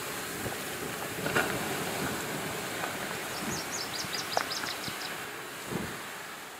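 Campfire being doused with water: a steady hissing and sizzling as the water hits the hot coals and turns to steam, fading away near the end. A bird's short run of rapid high chirps about three and a half seconds in.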